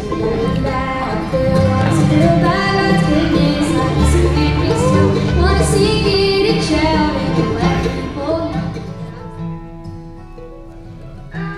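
Background music: a country-style song with guitar and a singing voice, dropping in level about nine seconds in.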